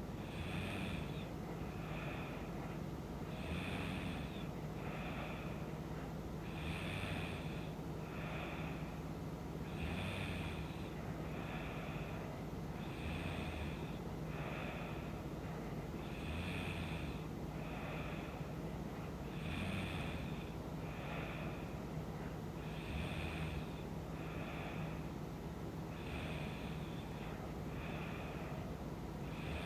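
A woman snoring in her sleep, about one breath every three seconds: each a louder snore followed about a second later by a shorter, softer one. A steady low hum runs underneath.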